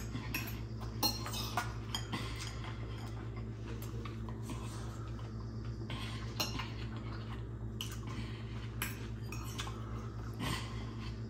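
Metal fork clinking and scraping on a plate of rice and peas while food is scooped up, a scatter of short sharp clicks at irregular intervals over a steady low hum.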